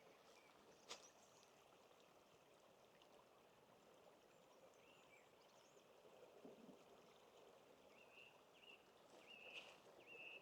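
Near silence: faint forest ambience, with a few faint short bird chirps in the second half and a single soft click about a second in.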